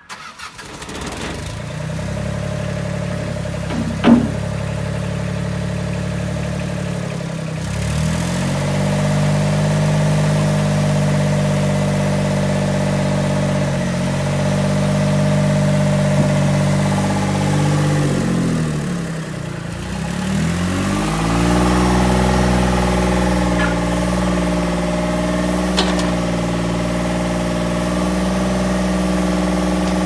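The Thwaites Alldig backhoe loader's diesel engine starts and settles into a steady run. Its pitch sags and comes back up a few times as the hydraulics take load to lower the stabiliser legs and swing the rear digging arm. A single sharp knock about four seconds in is the loudest moment.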